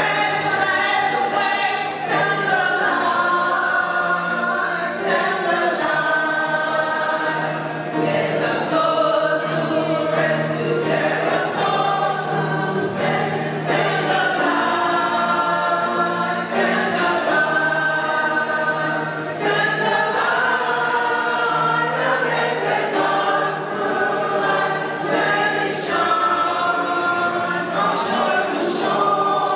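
A choir singing a gospel hymn.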